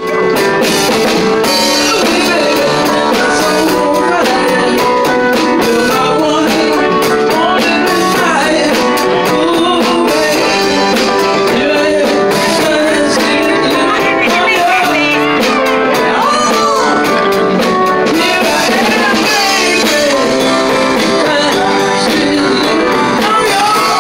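Live blues band playing: a woman sings lead into a microphone over guitar and the band, loud and steady throughout.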